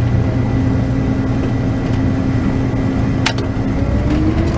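Combine engine running steadily, with a sharp click a little past three seconds in and a whine rising in pitch near the end as the separator is started and spins up.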